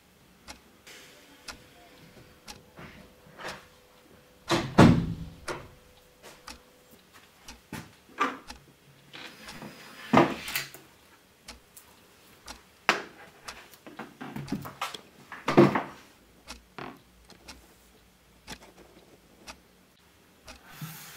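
Scattered clicks, taps and knocks of handling in a small room, with three heavier thuds spaced about five seconds apart, as a phone and a plastic water bottle are set down on a wooden tabletop.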